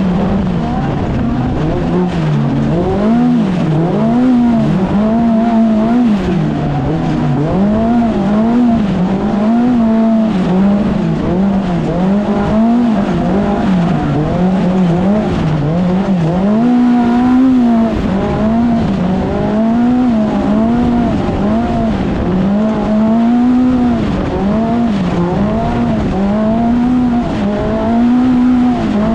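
Polaris Factory Pro R race UTV engine heard onboard, its pitch rising and falling again and again every second or two as the throttle is worked on and off, over constant loud vehicle noise.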